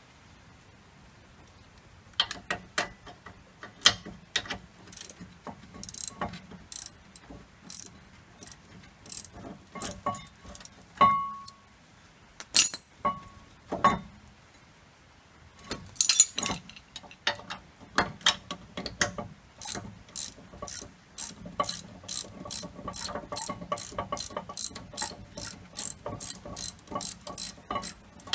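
Ratchet wrench clicking as a brake caliper bracket bolt is turned out, starting about two seconds in. The clicks come in irregular short runs at first, then settle into a steady stream of about three a second in the second half.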